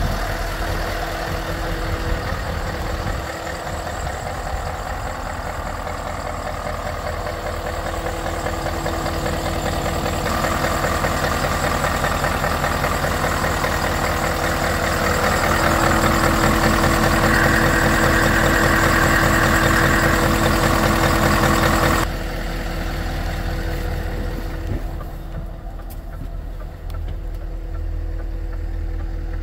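Scania S520's 16-litre V8 diesel idling steadily. About three-quarters of the way through the sound turns abruptly duller and quieter in its upper range.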